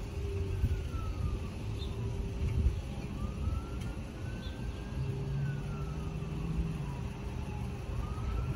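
Emergency-vehicle siren wailing, its pitch slowly rising and falling in about two cycles, over a steady low rumble.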